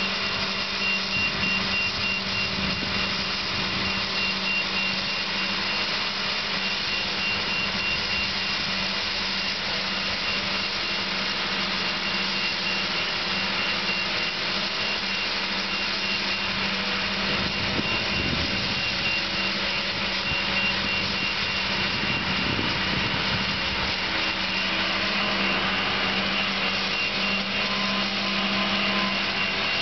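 Diesel engine of a truck-mounted crane running steadily under load as it swings a log cabin on its hook, with a thin high whine above the engine note.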